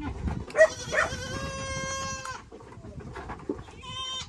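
Goat bleating: one long, steady bleat lasting about a second and a half, then a short second bleat near the end. There is a brief sharp sound about half a second in.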